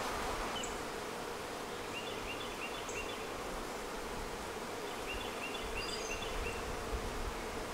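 Honeybee colony buzzing as a steady, even hum over an open hive box.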